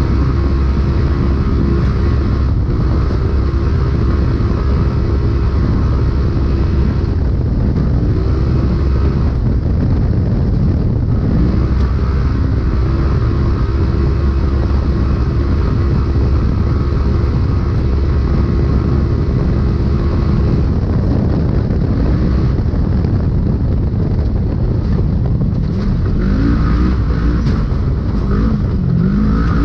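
Polaris RZR UTV engine heard from inside the car, running steadily at speed, with the revs rising and falling several times in the last third.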